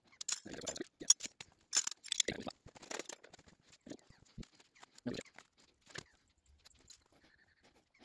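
Pencil scratching on the paper of a spiral-bound notepad while a sketch is drawn, in short irregular strokes with small taps and paper-handling noises. The strokes thin out near the end.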